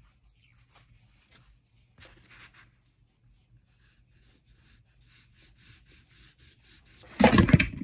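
Oil pastel rubbed on paper in short scratchy strokes, quickening to a run of about five strokes a second. Near the end a loud, brief bump, a mishap.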